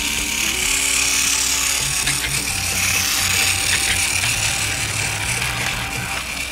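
Battery-powered Plarail toy train (Gordon) running along plastic track, its small motor and gears giving a steady whirring buzz, with background music.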